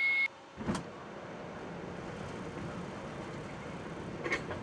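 Steady rushing background noise in the flight deck of an Airbus A350-900 on approach. A single thud comes just under a second in, and a short click near the end.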